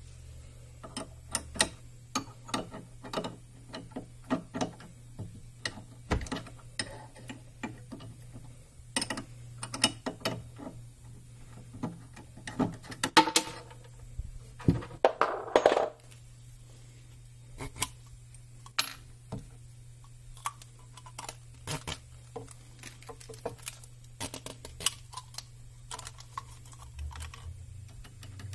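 Small metal wrenches clicking and clinking against the collet nut of the Nomad 883 Pro's spindle as the end mill is changed, with a louder rattling scrape about halfway through. A steady low hum runs underneath.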